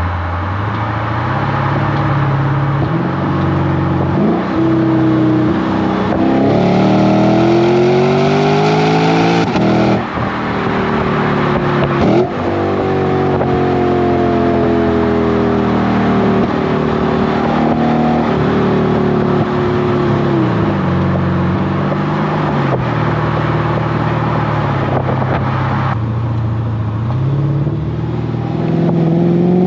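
Lexus GS-F's naturally aspirated 5.0-litre V8 through a Revel Medallion (Tanabe) axle-back exhaust, accelerating on the road. The engine note climbs, drops suddenly at two quick upshifts about a third of the way in, sinks slowly while the car eases off, then climbs again near the end.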